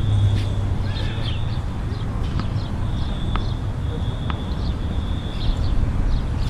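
Tennis balls being struck on an outdoor court: a few sharp pops about a second apart over a steady low rumble. A thin high tone comes and goes.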